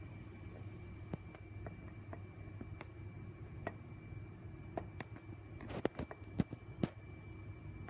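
Quiet night-time ambience: a steady low hum with a thin, high steady whine, and scattered soft clicks, several close together about six seconds in.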